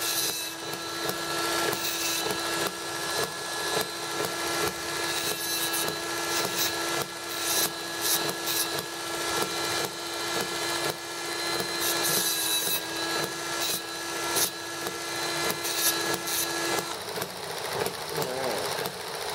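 Dremel rotary tool with an abrasive cut-off wheel running at speed and grinding through a small metal pipe: a steady motor whine with gritty cutting noise that swells and eases as the wheel is pressed in and backed off. The motor shuts off about seventeen seconds in.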